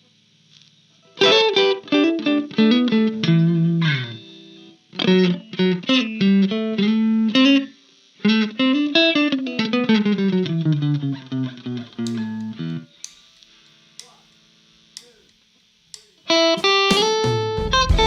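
Electric guitar playing fast single-note runs, lines that rise and fall in phrases with short pauses between them. Near the middle, a few seconds of faint, sparse notes come before the playing picks up again.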